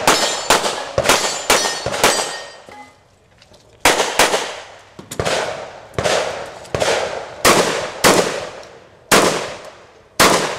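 A string of close-range gunshots from a competitor's firearm: five quick shots about half a second apart, a pause of nearly two seconds, then about nine more at a slower, steady pace, each trailing off in echo.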